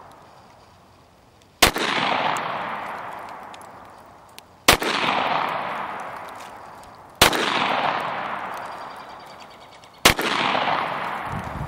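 Springfield Armory XD-S 9mm pistol fired four times, single shots two to three seconds apart, each followed by a long echo that fades away.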